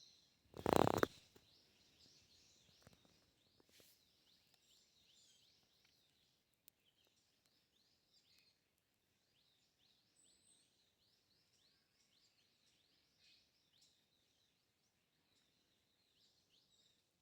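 Small birds chirping steadily in the background, many short repeated calls. About a second in there is one loud, short burst of noise, and a couple of faint knocks follow.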